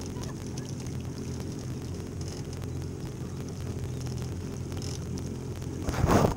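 Boat's outboard engine idling with a steady low hum, and a short louder burst of noise near the end.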